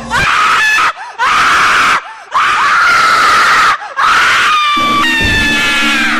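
Horror sound effect: a run of shrill, high-pitched screams broken by short gaps, about four in all. Near the end they give way to an eerie held tone over a low drone.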